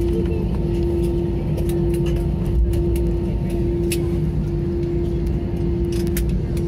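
Cabin noise in an Airbus A320 during the landing rollout: a steady rumble from the wheels on the runway and the CFM engines, a steady hum, and scattered light knocks and rattles.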